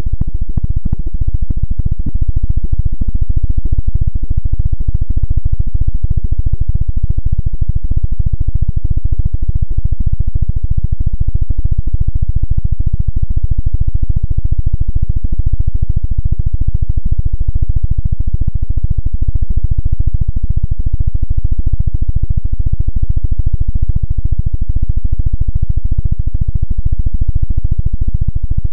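Loud, dense noise music: a steady wall of low, distorted rumble made of very rapid stuttering pulses, dull and muffled with almost nothing in the treble.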